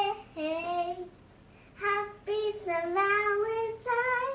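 A young girl singing a simple tune in long held notes, with a short pause about a second in.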